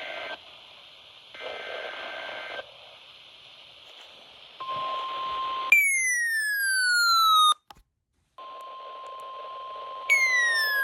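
NOAA Weather Radio alert over radio static: short data bursts, then the steady 1050 Hz warning alarm tone, which signals that a warning is about to be broadcast. Twice a louder electronic tone sweeps down in pitch over it, with a brief dropout to silence between them.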